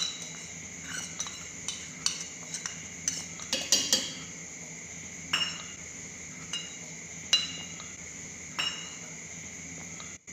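Steel spoon clinking and scraping against a stainless-steel mixer-grinder jar as powder is spooned in and tapped off. About a dozen irregular clinks with short metallic ringing, several close together about four seconds in.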